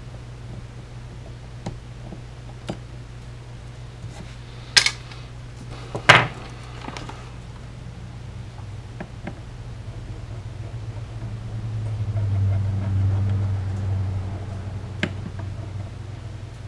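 Hand tools handled on a wooden workbench: a couple of soft clicks, then two sharp clattering knocks a little over a second apart as a soldering iron, pliers and a spool of solder are brought out, over a steady low hum that swells for a few seconds later on.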